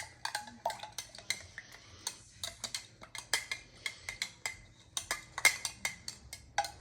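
Spoon stirring red-coloured water in a small cup, clinking and tapping against its sides in quick, irregular strokes.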